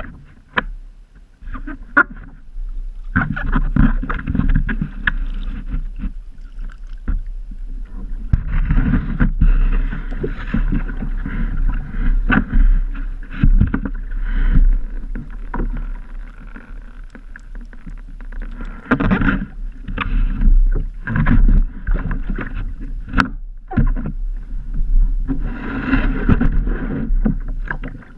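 Kayak hull scraping and knocking against the edge of a wooden dock as it is dragged up out of the water, in several rough bursts with sharp knocks between them.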